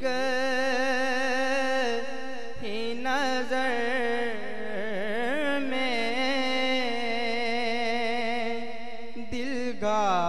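A man's voice sings a naat through a microphone in long, drawn-out notes that waver and turn in pitch. There are short breaks for breath about two and a half seconds in and again near the end.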